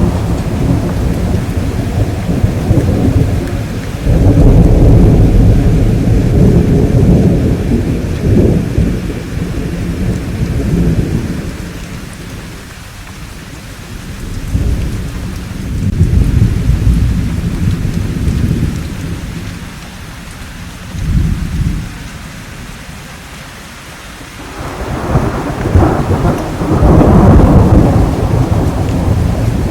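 Thunderstorm: steady rain hiss under rolling thunder that swells and fades in several long waves, with the loudest rumbles about four seconds in and again near the end.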